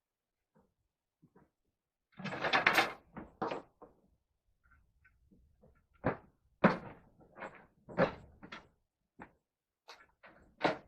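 Irregular knocks and clunks of wood being handled, with a short scraping noise about two seconds in and sharper knocks from about six seconds on.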